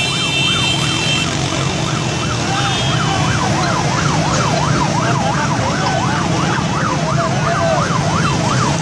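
A siren in a fast yelp, its pitch sweeping up and down about twice a second over a steady low rumble of vehicle engines.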